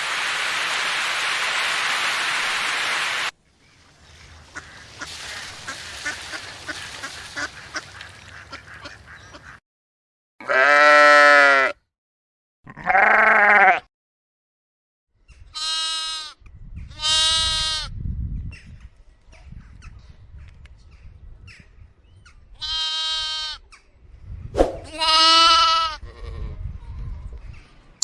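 Sheep bleating: six separate wavering calls a second or so long, spread over the second half, the first two the loudest. Before them comes a steady hiss of noise that cuts off abruptly about three seconds in, then fainter noise.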